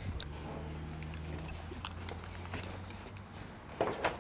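Faint scattered taps and clinks from steel standing seam roof panels being handled and set in place, over a low steady hum that fades after about three seconds. A short scuff or rustle comes near the end.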